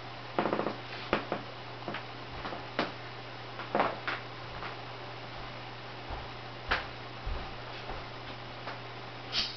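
Steady low electrical hum with about a dozen irregular light clicks and knocks over it, the sharpest a little before the middle and near the end.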